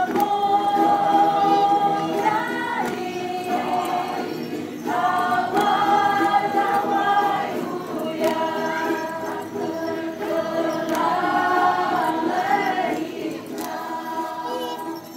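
Group of voices singing a Dayak Kenyah datun song together, long held notes in phrases of a few seconds with brief breaks between them.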